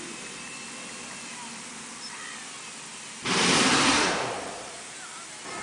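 A loud burst of rushing, hissing air from the compressed-air equipment at a truck tire changer, starting about three seconds in, lasting about a second and then fading away, over low steady shop background noise.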